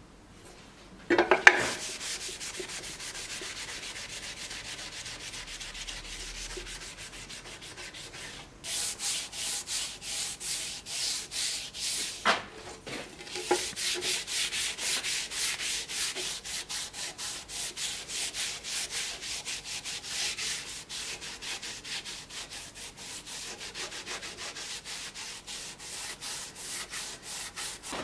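A pattern-welded steel blade being rubbed by hand with an abrasive in rapid back-and-forth strokes, about two to three a second, scraping the dark etch from the surface to bring out the layered pattern. A sharp metallic knock with a brief ring comes about a second in, and a couple of lighter knocks follow midway.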